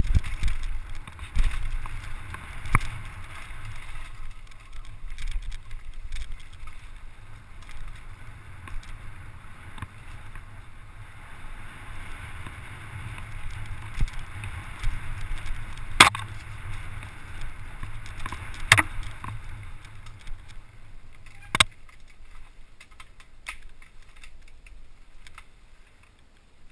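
Enduro mountain bike descending a dirt singletrack at speed: wind rumbling on the microphone and tyres rolling over dirt, with several sharp clacks from the bike over bumps in the second half. It quietens near the end as the bike slows.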